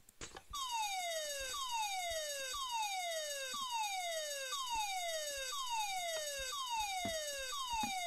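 Minecraft fire-alarm mod's siren and fire bell sounding after a pull station is pulled. The siren sweeps downward about once a second over the steady ringing of the bell, starting about half a second in.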